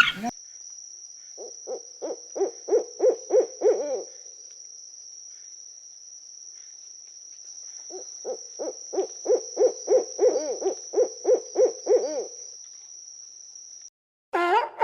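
Two runs of short, low hooting calls, about three a second, the second run longer, over a steady high-pitched trill that cuts off near the end.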